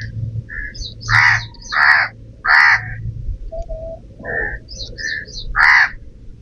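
A crow cawing four loud, harsh caws, with short high chirps repeating between them.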